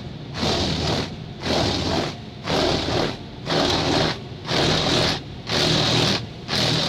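Touchless car wash's high-pressure water jets pounding on a car's windshield and body, heard from inside the cabin, coming in regular surges about once a second over a steady low hum.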